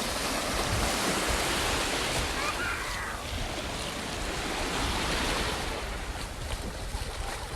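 Sea waves washing on the shore, a steady rushing noise, with a faint voice about two and a half seconds in.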